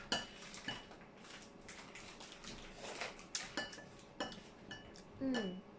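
A spoon clinking against a bowl while stirring a dipping sauce: about six separate clinks that ring briefly, with a short murmur of a voice near the end.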